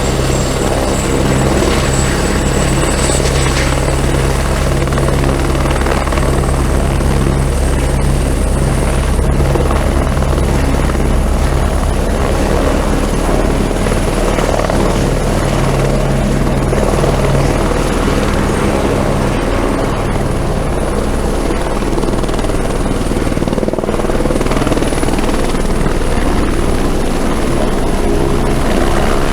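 Helicopter running steadily: a rapid low rotor beat under a thin, steady high whine, with no let-up.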